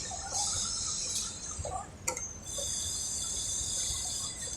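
A steady high-pitched hiss with faint held tones, broken near the middle by one sharp metallic click, as small sewing-machine parts are handled.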